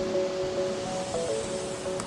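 Music with a slow melody of held notes, over a steady noise of surf.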